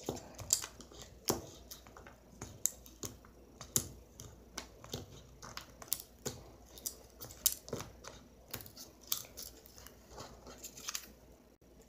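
Slime being squeezed and stretched by hand, giving irregular wet clicks and small pops.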